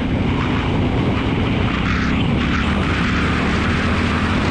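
Triumph Scrambler 1200's parallel-twin engine running steadily at cruising speed, with wind rushing over the microphone.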